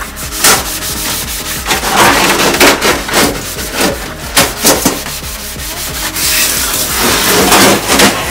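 Sponge scrubbing a wet stainless-steel splatter guard in a stainless-steel sink: repeated rough rubbing strokes.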